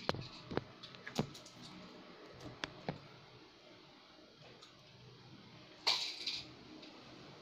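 Faint background noise with about five light clicks in the first three seconds and a short hiss about six seconds in.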